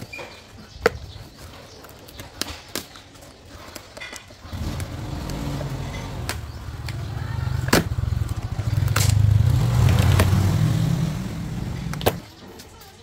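Sharp clicks and knocks, then a low motor hum starts about four and a half seconds in, grows louder, and cuts off suddenly about a second before the end, with a few more clicks over it.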